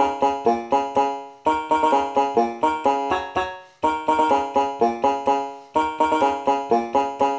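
Background music: a plucked-string melody of quick, sharply struck notes that die away fast. It runs in repeating phrases of about two seconds, each ending in a brief pause.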